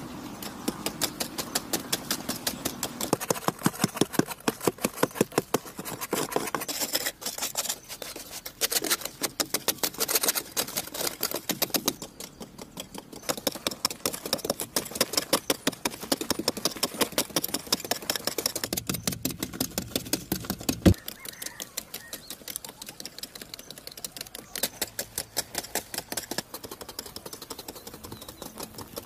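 Rapid, regular tapping or knocking strikes, about five a second, in runs with a short pause, and one sharper knock about two-thirds of the way through.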